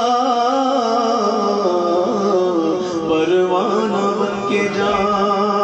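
A man sings an Urdu naat (devotional song) into a microphone, drawing out long, wavering notes over a steady drone.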